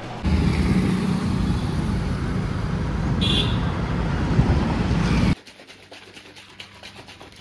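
Road traffic noise: a steady low rumble of passing vehicles, with a brief high tone about three seconds in. It cuts off abruptly after about five seconds, leaving faint clicks.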